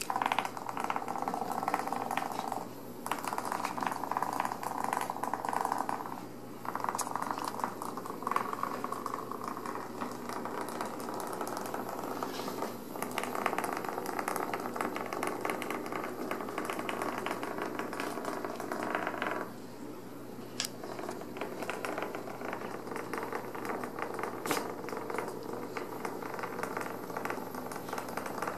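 Sheer organza drawstring bags rustling and crinkling as Ragdoll kittens pounce and scramble through them, in several stretches broken by brief pauses, over a steady low hum.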